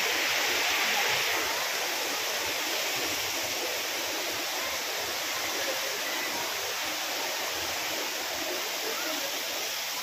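Waterfall rushing steadily, a little louder for the first second or so and then slightly softer.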